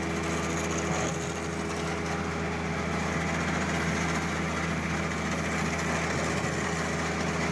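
An engine-driven machine running steadily at one speed: a constant low hum with an even hiss over it.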